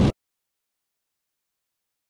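A loud, even noise cuts off abruptly just after the start, leaving dead silence: the audio track drops out entirely.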